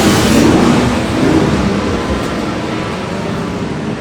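Two-stroke racing motorcycle engine running loudly, the sound easing off slightly over the last couple of seconds.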